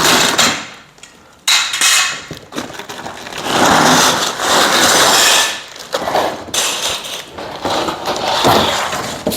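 Greenhouse kit parts and packing being pulled out of the cardboard box by hand: irregular rustling and scraping with knocks and clatter. The longest, loudest stretch of rustling comes about halfway through.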